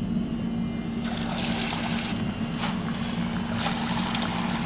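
A battered shark fillet deep-frying in a saucepan of hot oil. It starts about a second in as the fillet goes into the oil, with a loud, steady sizzle full of crackles.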